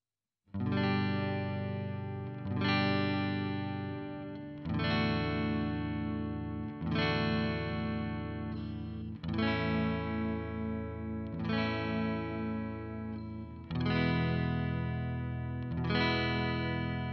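Yamaha RGX112 electric guitar played through a Marshall amp head. It starts about half a second in, with a chord or phrase struck about every two seconds, eight times, each left to ring and fade before the next.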